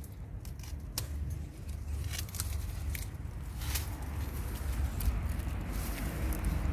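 Pruning shears snipping bougainvillea twigs: a scatter of sharp clicks with leaves and branches rustling, over a steady low rumble.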